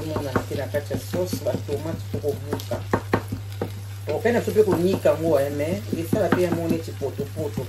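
Wooden spatula stirring and scraping chopped tomatoes and onions frying in a pan, with many quick clicks of the spatula against the pan over the sizzle. A steady low hum runs underneath.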